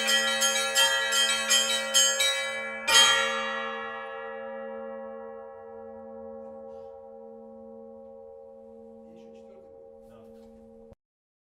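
Russian church bell peal on a set of tuned bells: quick strokes on the small chiming bells over a low, slowly throbbing hum. About three seconds in comes one final louder stroke, then the bells ring on and fade for several seconds until the sound cuts off abruptly near the end.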